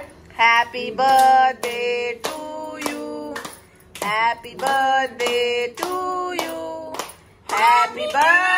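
Several voices singing a birthday song in long held notes, with hand claps keeping time.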